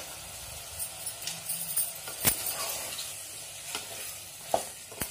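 A spatula stirring goat offal and onions frying in an aluminium pressure-cooker pot: a faint steady sizzle with the utensil scraping and knocking on the pot wall several times, the sharpest clank about two seconds in.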